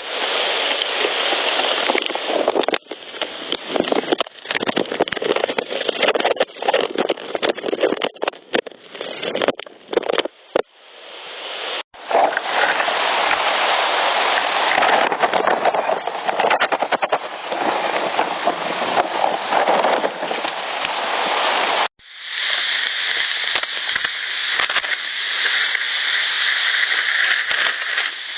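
Handling noise on a portable audio recorder: loud rustling, scraping and crackling as the recorder is gripped and moved right against its microphone. The sound cuts from one clip to the next at brief gaps about 12 and 22 seconds in.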